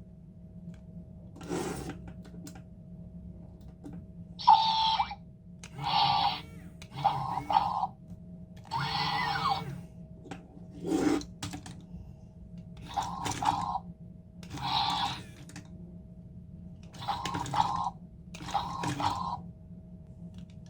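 Small electric motors of a remote-control toy robot whirring in about a dozen short spurts, over a faint steady hum.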